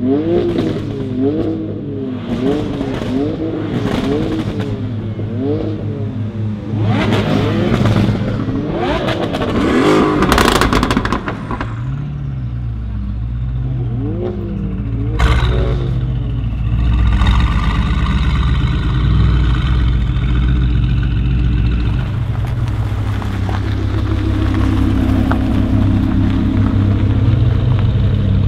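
Mercedes-AMG GT R's twin-turbo 4.0-litre V8 breathing through a decatted Fi exhaust, revved in quick repeated blips that rise and fall, with crackles from the exhaust about ten seconds in and a single sharp pop around fifteen seconds in. It then settles to a steady idle.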